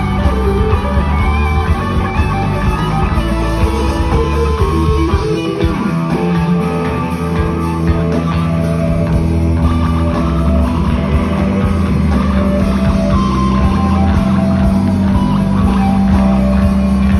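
Live blues-rock band: a distorted electric guitar solo over bass and drums, with sliding bends midway, then a low note held steady through the second half.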